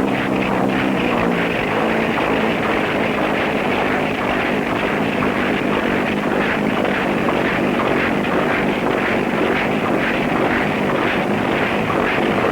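Steady engine and propeller noise from an experimental direct-lift flying machine whose engine drives a reciprocating flat-disc propeller.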